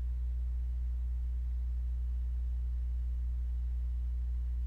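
Steady low electrical hum, a constant drone at mains frequency with no other sound over it.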